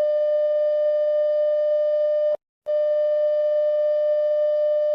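Emergency alert system attention tone: a steady, buzzy single-pitch tone in two long blasts with a brief break about two and a half seconds in.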